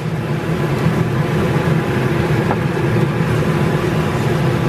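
Steady, even hum of a kitchen extractor fan over the stove while sauce is stirred in a wok, with one faint tap of the wooden spatula about two and a half seconds in.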